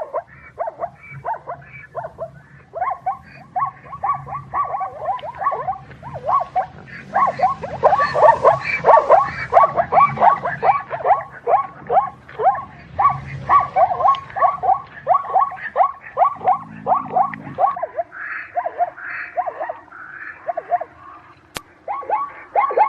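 Zebra calling in a rapid series of short barking yelps, each dropping in pitch, about three a second, over a low rumble.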